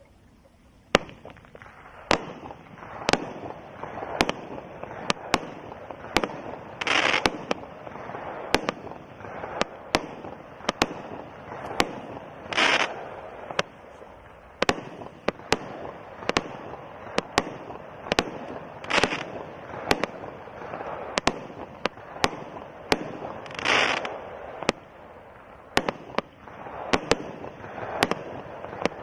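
'Cock Block' 70-shot consumer fireworks cake firing its shots in steady succession, a sharp bang about once a second. Every few seconds a longer hissing burst stands out.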